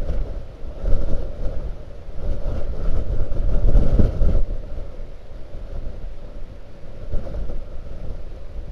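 Blizzard wind gusting against the microphone, a heavy low rumble that comes in surges, the strongest ending about halfway through and then easing off.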